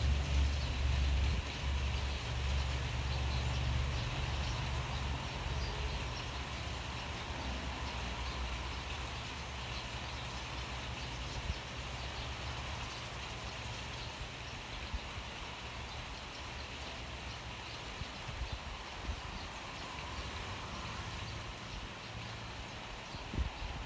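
Steady rain, an even hiss throughout. A low rumble underneath is strong at first and fades away over about the first ten seconds.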